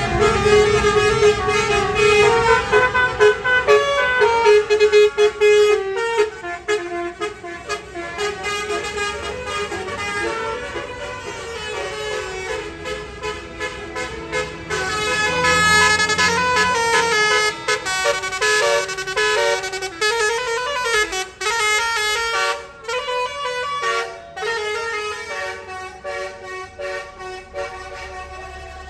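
Tour bus's basuri musical air horn playing a long tune of quick, stepping notes. It is loudest in the first few seconds and fades away toward the end.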